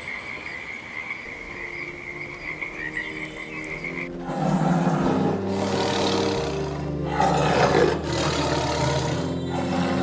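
A toad's steady high-pitched trill, then, about four seconds in, a big cat's loud growling roars in several long bursts, over background music with sustained low notes.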